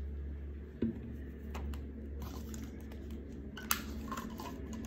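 Hands stretching rubber bands around a plastic plate: soft handling noise with a few sharp clicks and snaps of rubber on plastic, over a low steady hum.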